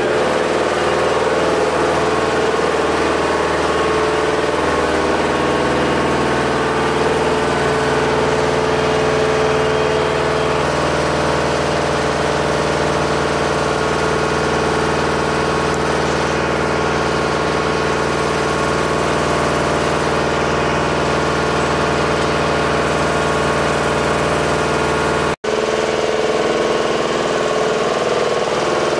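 Engine of an MJ-1C bomb lift truck idling steadily, with a brief cut-out about 25 seconds in.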